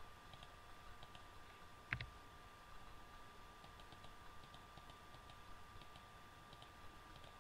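Faint computer keyboard keystrokes and mouse clicks, scattered ticks with one sharper click about two seconds in, over a faint steady hum.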